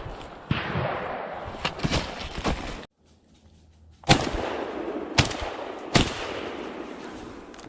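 Several shotgun blasts at a deer, the clearest three about a second apart in the second half, over wind rushing on the microphone. The sound cuts out briefly near the middle.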